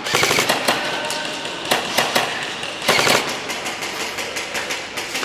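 Scattered airsoft gunfire: irregular sharp clicks and snaps of shots, bunched near the start and again about three seconds in.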